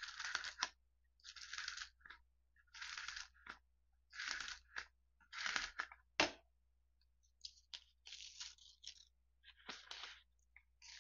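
Plastic scraper rubbed firmly over a sheet of paper laid on a cutting mat, burnishing it down: a run of short scratchy strokes about a second and a half apart, with a sharp tap a little past the middle, then lighter rubbing strokes.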